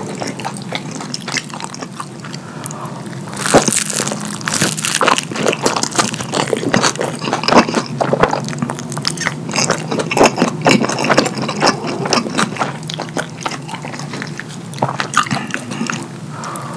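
Close-miked wet chewing and lip-smacking of pizza soaked in thick cheese sauce: a dense run of quick sticky clicks and smacks from about three and a half seconds in. Before that it is quieter, with soft squelching as the crust is dragged through the sauce.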